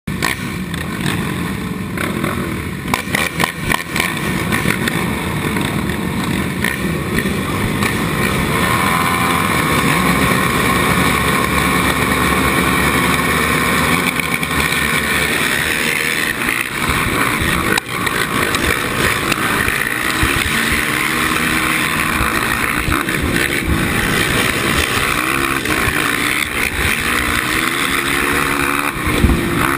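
Suzuki LTR 450 quad's single-cylinder four-stroke engine and a line of other race quads idling and revving at the start line, then the field accelerating away partway through, with the engines revving hard.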